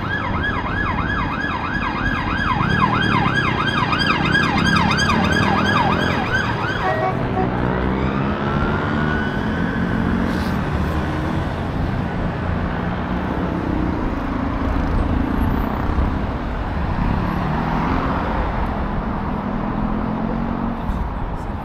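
Emergency vehicle siren sounding a rapid yelp, its pitch sweeping up and down about three times a second, which cuts off about seven seconds in. Busy street noise with traffic follows.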